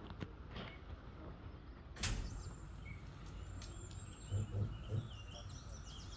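A single sharp report from a black-powder musket volley about two seconds in, with a short echo after it, then birds chirping. A few soft low thumps follow around the four-to-five-second mark.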